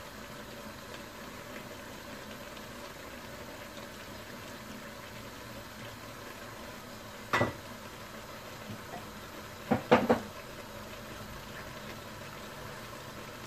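Steady low hiss of mutton pieces cooking in an open aluminium pot on a gas burner, with one sharp knock of kitchenware a little past seven seconds in and two more close together about ten seconds in.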